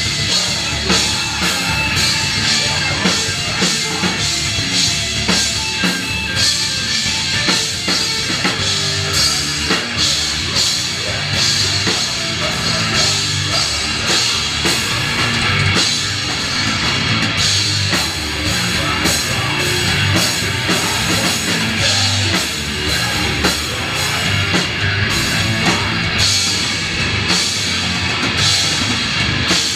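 Loud live heavy rock band playing: drum kit with many quick hits, under electric guitar and bass guitar.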